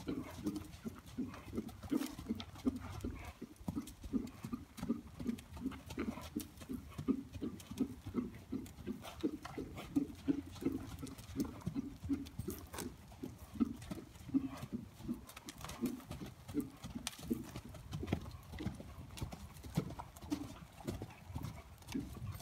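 Hoofbeats of a yearling Appaloosa horse trotting and cantering around a dirt-floored pen: a steady run of dull thuds, about two to three a second.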